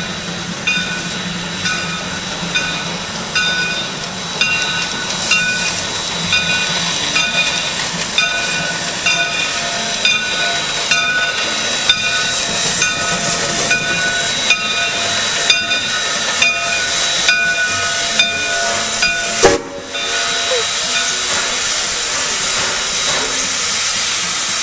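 Midwest Central No. 9, a Shay geared steam locomotive, rolls slowly in with its bell ringing about once a second and steam hissing. About 19 s in there is a sharp sudden sound and the bell stops, leaving a steady hiss of steam from the standing engine.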